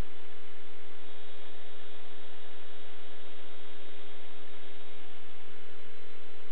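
Small camera drone's motors and propellers hovering: a steady hum with a few held tones whose pitch shifts slightly about a second in and again near the end.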